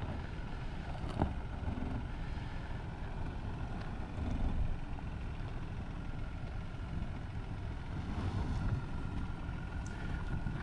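Ford Bronco Sport creeping down a steep rocky slope at a crawl, its engine running low with a few small ticks from the tyres on rock, over a steady rumble of wind on the microphone.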